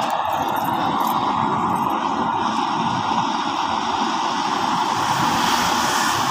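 Electric air blower running steadily, forcing air through a pipe into a homemade charcoal forge: a constant whirring rush of air fanning the glowing coals.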